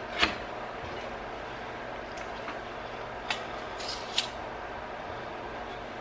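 A few short scrapes and taps of a metal putty knife working wet clay on a tabletop, over a steady background hum.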